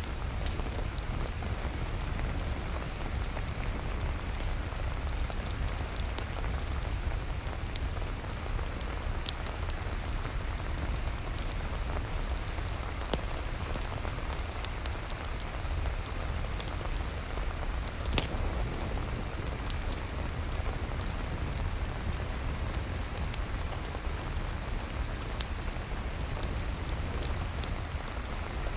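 Steady rain falling, with scattered sharp crackles from a wood fire in a fireplace; one louder pop comes about two-thirds of the way through.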